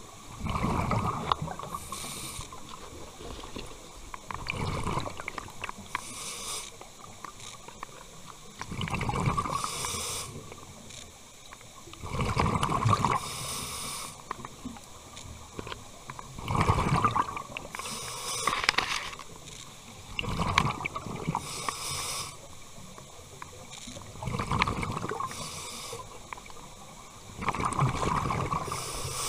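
Scuba diver breathing through a regulator underwater. A hiss of air on each inhale alternates with a rumbling burst of exhaust bubbles on each exhale, about one breath every four seconds, seven cycles in all.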